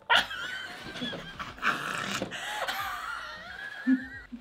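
A sudden hit as the spring-loaded plastic hand of a pie-in-the-face game snaps into a player's face, followed by high-pitched, wavering laughter and squealing.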